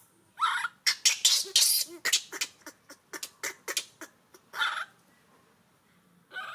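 Baby monkey crying out in a fast string of short, high cries over the first couple of seconds, followed by a few separate cries spaced a second or so apart.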